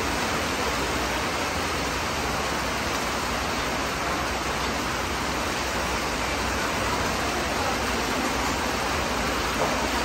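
Steady rain falling, an even hiss with no break.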